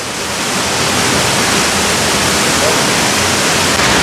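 Waterfall rushing steadily, a dense hiss of falling water that grows slightly louder over the first second.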